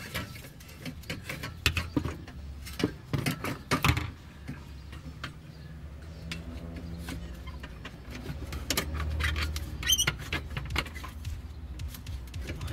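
Mounting bracket and its fasteners being handled and fitted up under a car: a run of light clicks, knocks and rattles, busiest about two to four seconds in, with a short squeak about ten seconds in, over a low steady hum.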